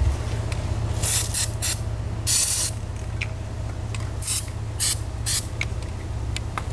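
Aerosol can of white lithium grease sprayed in about seven short hissing bursts, one longer than the rest, onto a corroded trailer jack pin to free it.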